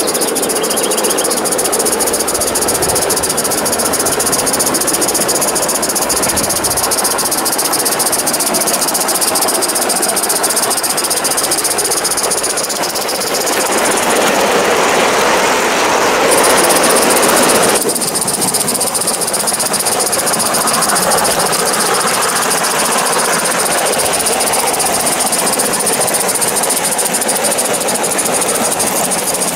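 Accucraft Southern Pacific F-4 live-steam 2-10-2 model locomotive running with a train of goods wagons: a steady hiss of steam with running and rail noise. It is louder for a few seconds in the middle as the locomotive passes close by.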